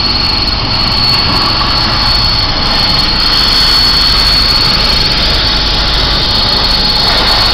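Hypertherm HPR260XD plasma arc cutting torches on a CNC table cutting steel plate: a loud, steady hiss of the plasma arc with a constant high whistle running through it.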